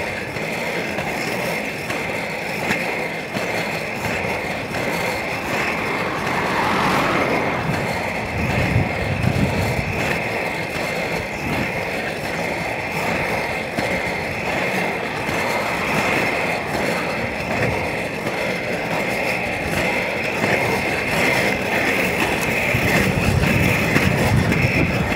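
Inline skate wheels rolling steadily over rough asphalt, a continuous rolling noise.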